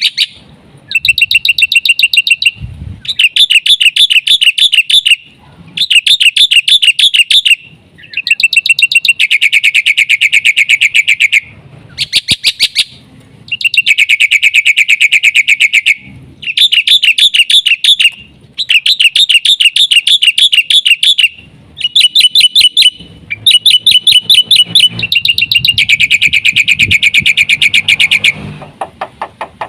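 Black-winged myna (jalak putih) singing loudly in repeated phrases of rapid, chattering trills, each a second or two long, with short pauses between them.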